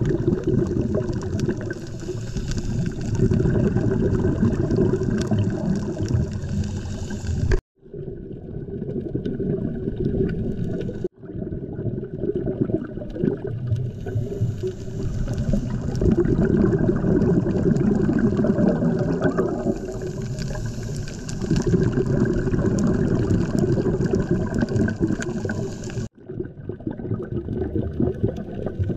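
Muffled underwater rushing and gurgling picked up by a camera in its waterproof housing during a scuba dive, mostly low and dull, cutting out abruptly for a moment three times.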